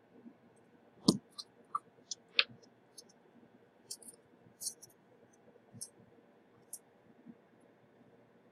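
Small tools clicking and tapping at the work bench, a dozen or so sharp, irregular clicks with the loudest about a second in and another about two and a half seconds in, during the reballing of a chip with solder paste.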